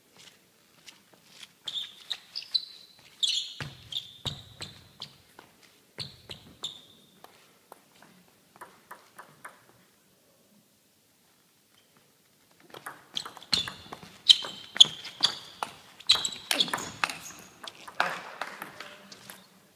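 Table tennis rallies: the ball clicking back and forth off bats and table in quick succession. Two rallies, the second faster and louder, with a pause of several seconds between points.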